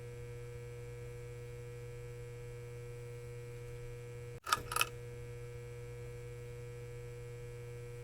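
Steady electrical hum: a low drone with a few thin steady tones above it. About four and a half seconds in it cuts out for an instant and two sharp clicks sound before the hum carries on.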